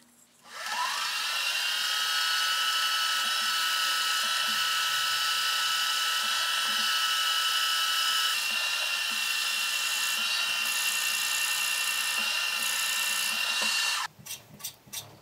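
Milling machine spindle spinning up with a rising whine, then running with a steady high whine while drilling holes in an aluminium gantry support. It stops suddenly near the end, followed by a few light clicks.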